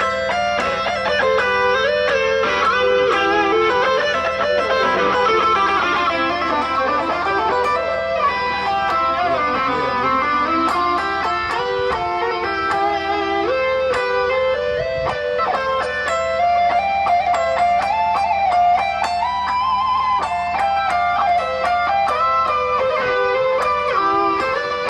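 Electric guitar played through a Boss ME-50 multi-effects pedal: a continuous lead line of sustained notes that slide and bend in pitch.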